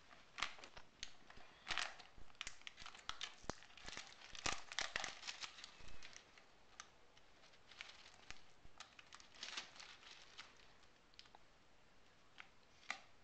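Irregular crinkling and crackling, a rapid run of small sharp crackles that thins out about halfway through, with one sharper crackle near the end.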